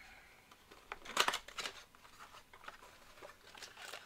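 Trading cards and their foil wrappers being handled by hand: scattered short rustles and snaps, loudest just after a second in, with a few more near the end.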